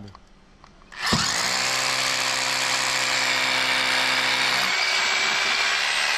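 Electric hammer drill boring into a concrete roof slab, starting about a second in and running steadily, drilling holes for the anchor fasteners that will hold an air conditioner's outdoor unit in place.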